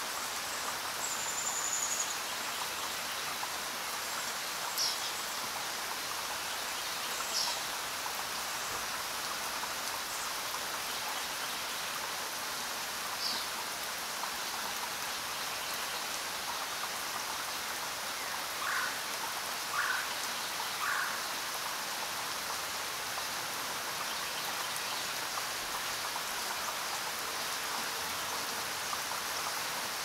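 Steady rain falling, an even hiss. A few short, high chirping animal calls break through now and then, and a little past the middle three lower calls come about a second apart.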